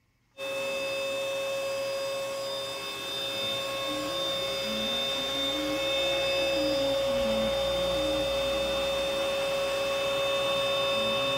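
DIY CNC router running: the router spindle gives a steady high whine while the stepper motors sing in short tones that step up and down in pitch as the gantry moves. The sound starts suddenly about half a second in.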